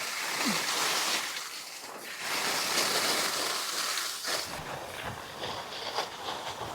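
Snowboard sliding and scraping over hard-packed snow, a steady loud hiss that turns rougher and more rattling about four seconds in, with wind buffeting the microphone.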